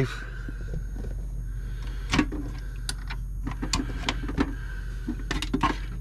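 Scattered light clicks and knocks of hard plastic being handled, as the clear water reservoir of a Keurig K-Express coffee maker is taken off and turned over in the hands, over a steady low hum.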